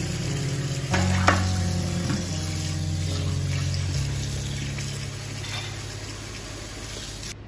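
Kitchen faucet water running onto a plate being rinsed in a stainless steel sink: a steady splashing hiss that cuts off suddenly near the end, with a sharp clink of the plate about a second in. Soft background music plays underneath.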